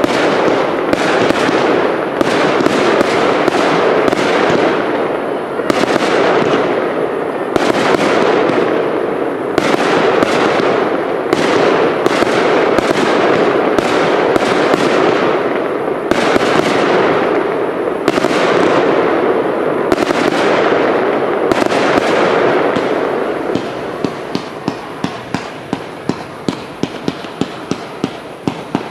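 Firework cakes firing a dense barrage of overlapping shots and crackling bursts. Near the end the barrage thins to single sharp shots, about two a second.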